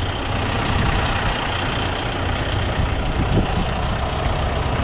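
A heavy engine, most likely a truck's, idling steadily with a deep, even rumble.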